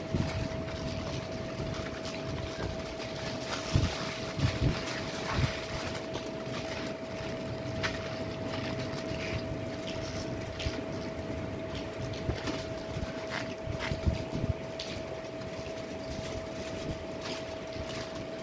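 A steady machine hum with one constant mid-pitched tone, under scattered small clicks and rustles from eating by hand off foil and plastic food containers.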